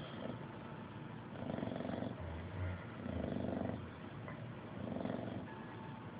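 English bulldog snoring in its sleep: three rattling snores in a steady breathing rhythm, each under a second long.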